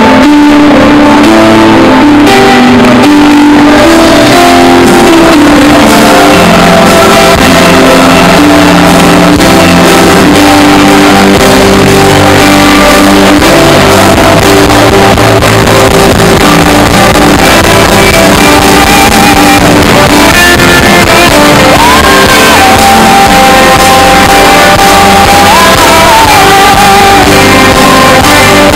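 Loud gospel worship song with guitar and singing, playing continuously. A long held, wavering note stands out in the second half.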